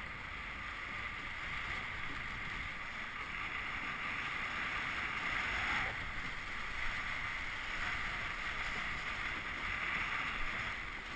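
Steady rush of water along the hull of a Melges 17 sailing dinghy moving at speed, mixed with wind.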